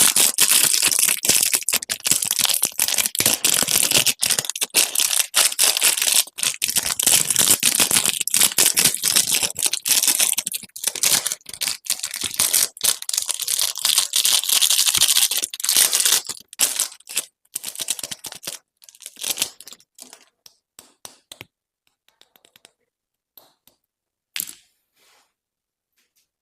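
Candy wrapper packaging crinkling and crackling as it is handled and unwrapped. The sound is dense for about the first sixteen seconds, then thins to scattered crackles with quiet gaps.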